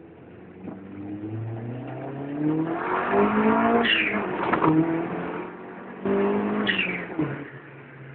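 Car engine accelerating: its pitch climbs in steps and gets loud a few seconds in, eases off, then surges again suddenly about six seconds in before settling back to a low steady hum.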